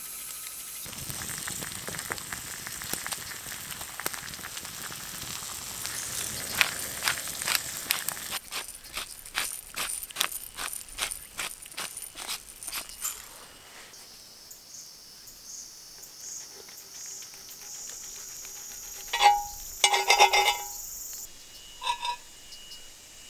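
Insects chirping steadily in a thin, high-pitched drone. A run of quick clicks and rustles comes partway through, and a few short squeaky calls come near the end.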